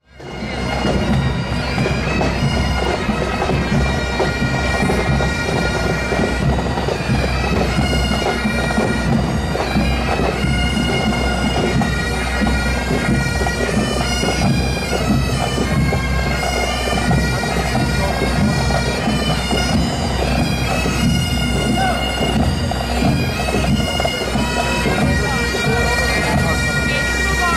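Pipe band playing a march: Great Highland bagpipes sounding a melody over their steady drones, with the band's drums, fading in within the first second.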